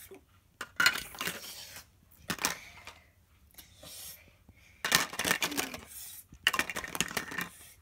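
Clattering and clinking of toy pots, utensils and plastic play food being handled, in several separate bursts with quiet gaps between them.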